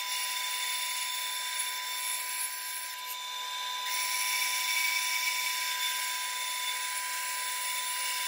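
Bandsaw running steadily with its blade cutting through a wooden board, a constant machine hum with the hiss of the cut above it.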